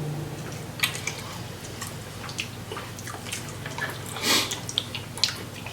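Wet, close-up eating sounds from seafood boil with sauce: scattered sharp clicks and squishes of chewing and shell handling, with a short slurp about four seconds in.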